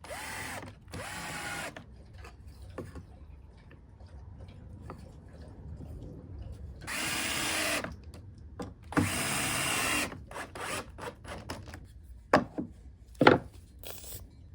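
Power drill running in four short bursts, its motor speeding up and winding down each time, as it works into pallet wood. Two sharp knocks follow near the end.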